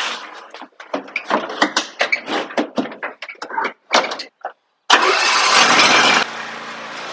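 Hard plastic bagger chute knocking and rattling as it is fitted onto a Simplicity Regent riding mower's deck. About five seconds in, the mower's engine starts with a loud burst and after a second and a half settles into a steady idle.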